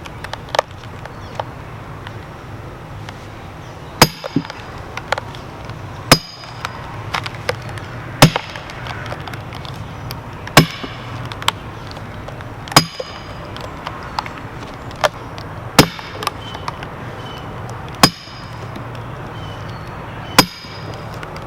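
Sledgehammer blows driving steel splitting wedges into a large red oak log, about eight heavy strikes two to three seconds apart. Each strike gives a sharp metallic clang with a brief ring, and smaller clicks come between the strikes.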